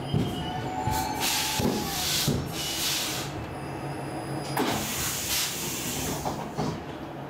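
Stockholm Metro C14 car standing at a platform: several short hisses of compressed air from its pneumatic brake or door equipment, over a steady low hum.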